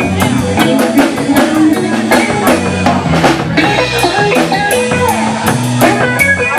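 Live band playing: electric guitar, bass guitar and drum kit, the drums keeping a steady beat of about four hits a second.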